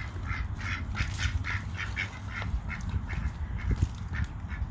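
Domestic ducks quacking in a rapid run of short calls, about four a second, thinning out after about two and a half seconds, over a low steady rumble.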